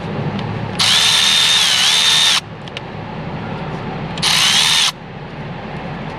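Cordless power driver spinning in two bursts, a long one and then a short one, its motor whine dipping briefly in the first, as it runs loose the small nuts on the intake air heater relay.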